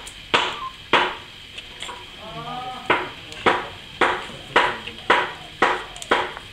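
A tool scraping the inside of a hollow dried gourd through a small hole, in sharp rhythmic strokes about two a second, with a short pause about a third of the way in.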